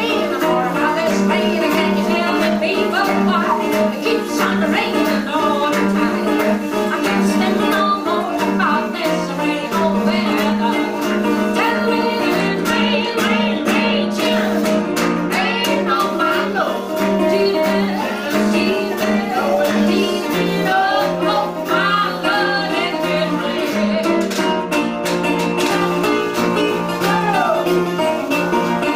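Acoustic blues played live on a resonator guitar with a washboard scraped and tapped for rhythm, under sung vocals from a woman and a man.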